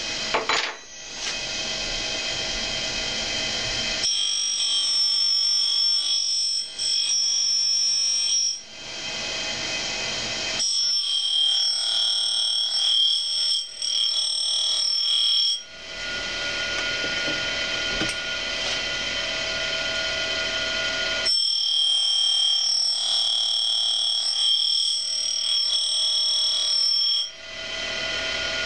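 Cuttermaster Journeyman end mill grinder's motor running steadily. Three times, each for about five seconds starting about four, eleven and twenty-one seconds in, a high-pitched whine rises over it as the end of a two-flute end mill is ground against the cup wheel, cutting the secondary clearance angle.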